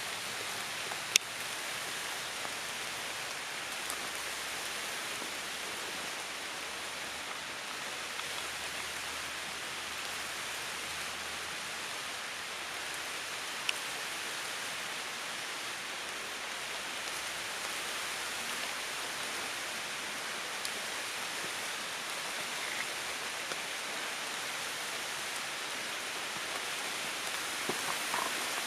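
Light rain falling on tree leaves: a steady hiss of drops, with scattered single drop hits standing out, one sharp one about a second in and another near the middle.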